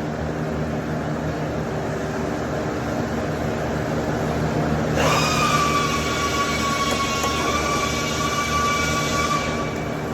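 A steady low machine hum. About halfway through, a MIG welding arc on stainless steel strikes suddenly and runs for about five seconds with a high-pitched whine and hiss, then cuts off.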